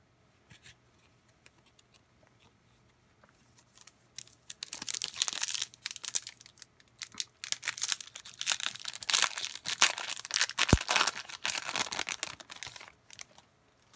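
Foil wrapper of a 2021 Topps Gallery baseball card pack being torn open and crinkled by hand. It starts about four seconds in and goes on in quick crinkling spells until near the end.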